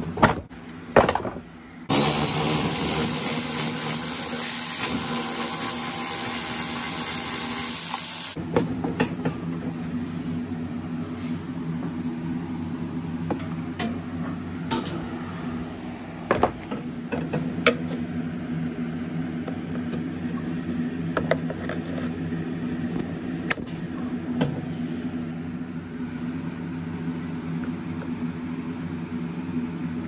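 Plastic riding-mower body panels being handled and lifted off, giving scattered clicks and knocks over a steady low hum. About two seconds in, a loud hiss starts and cuts off suddenly some six seconds later.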